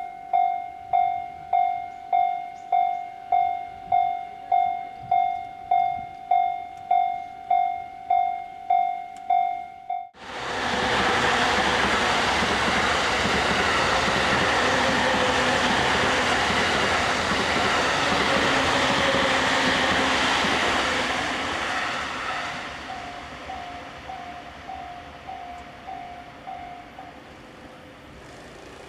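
Japanese level-crossing electronic warning bell dinging steadily, about one and a half dings a second. About a third of the way in, a train passes with loud rolling noise that covers the bell for about twelve seconds. As the train fades the bell is heard again, and it stops shortly before the end.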